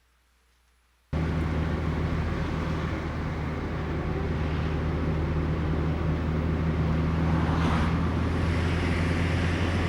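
A steady motor-driven running noise with a strong low hum starts suddenly about a second in, after near silence, and holds steady.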